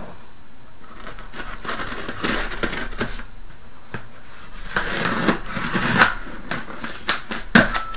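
A cardboard shipping carton being handled and opened: irregular rustling and scraping with sharp clicks and snaps, growing busier and louder about halfway through.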